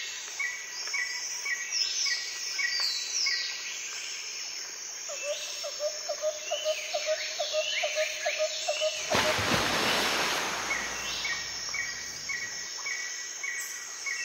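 Forest birds calling: a steady series of short notes repeating about three times a second, with falling whistled notes over it. A run of lower, rapid notes comes partway through. About two-thirds of the way in there is a brief rush of noise.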